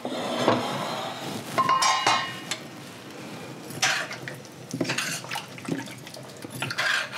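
Metal spoon clinking and scraping against a stainless steel pot while potatoes and pork ribs are stirred in their broth. Irregular knocks come about once a second, with a brief ringing metallic clink about two seconds in.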